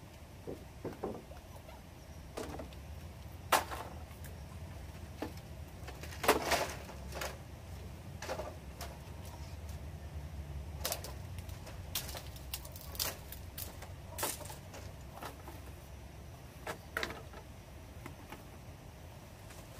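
Hollow knocks and clatters of bamboo poles and cut bamboo pieces being set down and stacked on one another, coming irregularly with a few louder knocks among softer ones.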